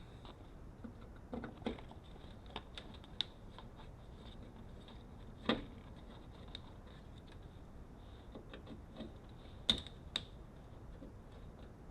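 Scattered light clicks and knocks of a screwdriver, screws and metal door hardware being handled while taking out a bracket inside a Jeep Wrangler TJ door, with two louder knocks about five and a half seconds in and near ten seconds.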